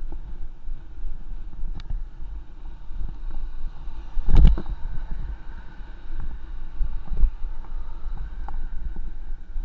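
Wind rushing over the camera's microphone while riding along a road, a steady low rumble and buffeting. A louder thump comes about four and a half seconds in.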